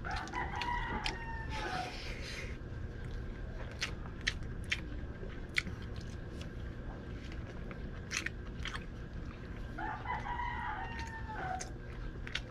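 A rooster crows twice, once at the start and again about ten seconds in, each crow under two seconds long. Between the crows come sharp clicks and smacks of someone eating with their hands.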